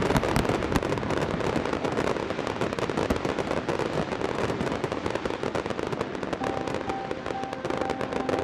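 Fireworks display: a dense, continuous crackle of many small bangs and pops from bursting shells, loudest at the start and easing off as the barrage thins.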